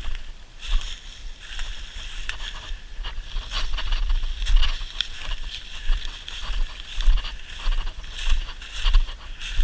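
Footsteps crunching and rustling through dry leaf litter at a walking pace, about one step a second, with wind rumbling on the microphone.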